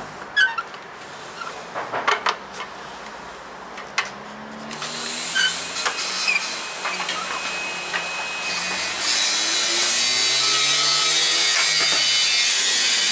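Clicks and knocks as the sliding mitre saw is handled, then from about five seconds a building mechanical noise that becomes a loud, steady running sound of a power tool from about nine seconds on.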